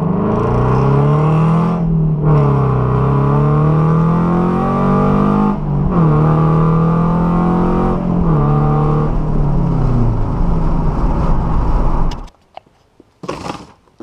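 Scion FR-S flat-four engine, with an unequal-length Borla header, high-flow cat, resonator delete and Corsa sport muffler, heard from inside the cabin under hard acceleration. Engine speed climbs and drops back at gear changes about two and six seconds in, then falls away as the car slows. The owner finds this exhaust setup raspy near the top of the rev range. The sound cuts off abruptly near the end.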